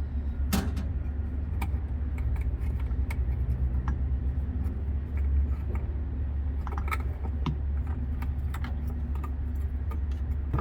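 Scattered metal clicks and clinks of the side panel of a Prochem Legend truckmount carpet-cleaning machine being unfastened and taken off, over a steady low hum.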